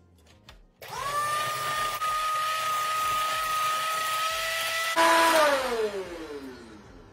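Electric hand mixer beating cheesecake batter in a stainless steel bowl: the motor whine starts just under a second in, rises to a steady pitch and holds. About five seconds in it is switched off, with the loudest moment, and the whine falls in pitch as the motor spins down.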